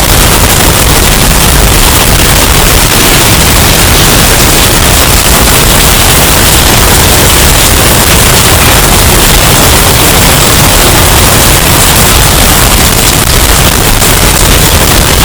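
Hurricane storm sound effect, bass-boosted and overdriven into constant distortion: a steady, very loud wall of noise with a heavy low rumble and no breaks.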